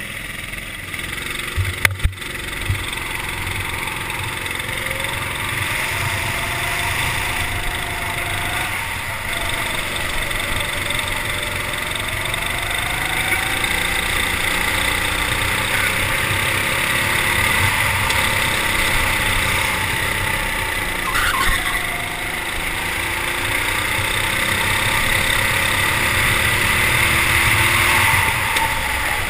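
Go-kart engine running on track, its pitch rising and falling as the kart accelerates and slows through corners, with a sharp knock about two seconds in.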